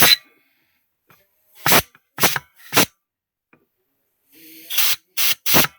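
Short blasts of compressed air from an air nozzle, about seven in all, one at the very start, three in a row about two seconds in and three close together near the end. The air is being fed into an automatic transmission's direct clutch pack to air-check the clutch apply.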